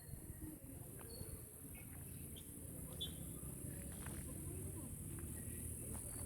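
Outdoor ambience: a steady high insect-like hiss over a low rumble, with a few faint short chirps.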